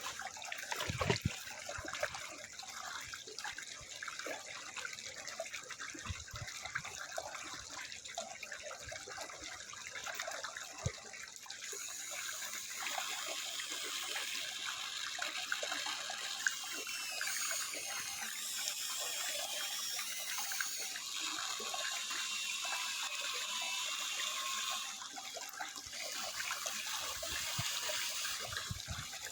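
Small electric motors of an Amewi RC excavator running over a steady hiss. From about halfway through they whine at a high pitch that wavers up and down as the machine works.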